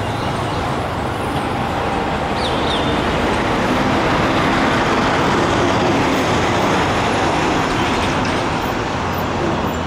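Steady road traffic noise: a continuous rush of passing vehicles that swells a little midway.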